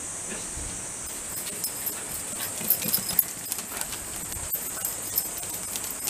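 Shiba Inu dogs running on concrete, their claws and paws making quick, irregular clicking taps that start about a second in, over a steady high-pitched hiss.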